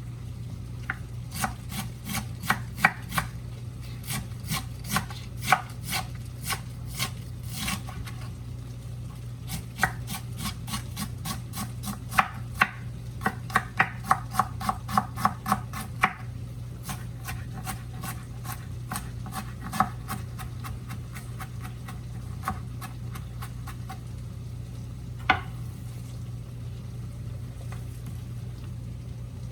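A knife chopping and shredding cabbage in quick runs of sharp strokes that thin out in the second half, over a steady low hum.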